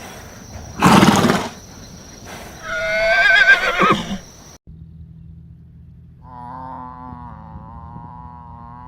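Animal calls from two short clips. A loud, brief noisy burst comes about a second in, followed by a wavering, whinny-like call. After an abrupt cut, a second steady, long pitched call starts about six seconds in.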